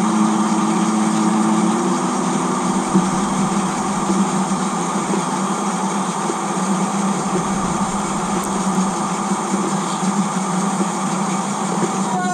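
N-scale model train of long box and container wagons running past close by: the locomotive's small electric motor hums steadily over the noise of the wheels rolling on the track.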